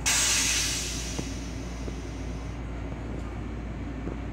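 Railcar toilet flushing: a sudden loud rushing hiss that fades away over about two seconds. Under it runs the moving train's steady low rumble.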